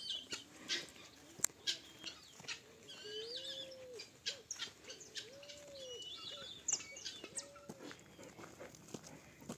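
Birds chirping in the countryside, with three low arched hooting calls about two seconds apart and scattered short clicks.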